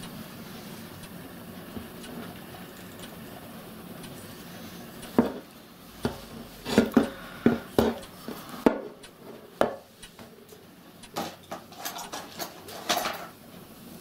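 Metal parts of a model locomotive gas burner clinking and knocking against each other and the wooden bench as the burner is handled and taken apart. It is quiet at first, then a run of sharp clinks starts about five seconds in.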